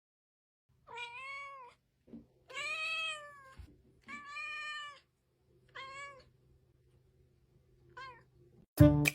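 A domestic cat meowing five times, each call rising and falling in pitch, the second and third the longest and the last a short one. Near the end, loud music with sharp beats cuts in.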